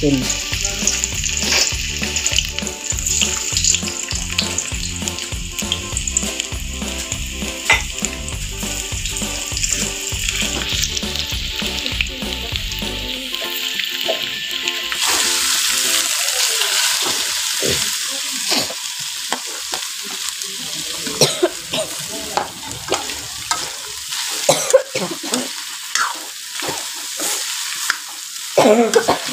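Sliced garlic sizzling in hot oil in a wok, with background music under the first half. From about fifteen seconds in, shredded chicken is fried and stirred, the spatula scraping and knocking against the wok.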